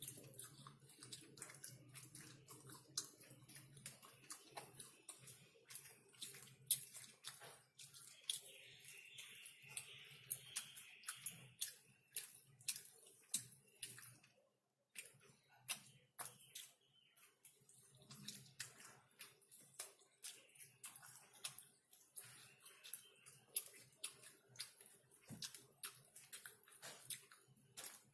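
Close-miked eating of chicken: wet chewing and lip-smacking, with many quick sharp clicks and smacks.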